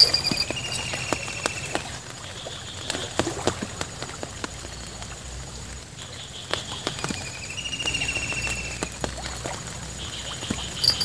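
A bird calling: a short trill of rapid notes that falls slightly in pitch, heard about half a second in and again about six and a half seconds in, with scattered light ticks in between.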